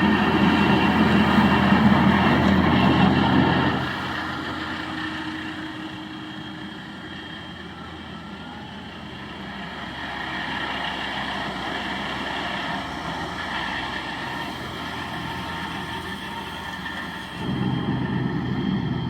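Tractor engine running at working speed. It is loud for about four seconds, drops suddenly to a quieter steady hum, and comes back loud near the end.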